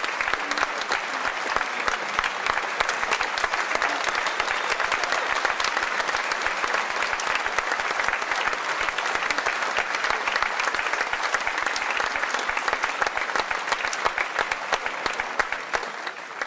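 Audience applauding steadily, a dense stream of hand claps that begins to die away near the end.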